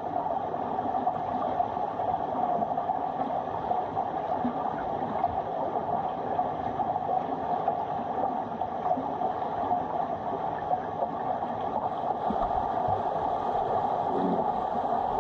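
Steady muffled underwater noise of a swimming pool, heard through a camera lying submerged on the pool floor, with a short low falling sound near the end as swimmers dive down.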